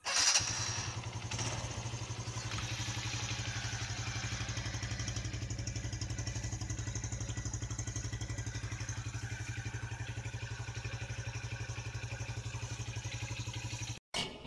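TVS 100cc single-cylinder motorcycle engine starting up and then idling steadily through its silencer with an even, rapid exhaust pulse. The idle stops abruptly near the end.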